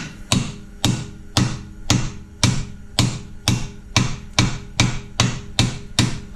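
Hammer striking a steel punch set against the axle nut, about two even blows a second, each with a short metallic ring: staking the nut's collar to lock it on the axle shaft after torquing.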